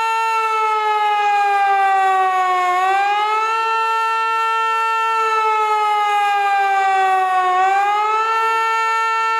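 Hörmann HLS 273 pneumatic high-performance civil defence siren, driven by compressed air, sounding the wailing public-warning signal. Its many-toned howl sinks slowly in pitch, then swings quickly back up, twice, about every five seconds.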